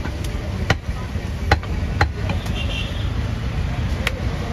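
Butcher's cleaver chopping goat meat on a wooden chopping block: a handful of sharp chops at irregular intervals, over a steady low background rumble.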